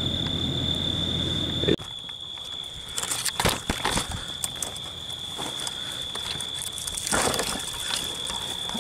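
A steady rushing noise that cuts off suddenly about two seconds in, then scattered crackling and snapping of twigs and dry brush as people push through thick scrub, with a louder rustle near the end. A thin steady high whine runs underneath.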